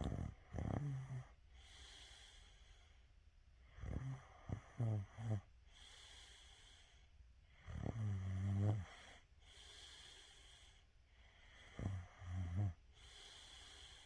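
Snoring: four snores, one about every four seconds, each a short buzzy rasp with quieter breathing between.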